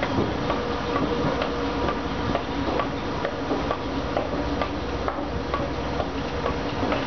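Escalator running, a steady mechanical hum with a regular ticking of about two clicks a second.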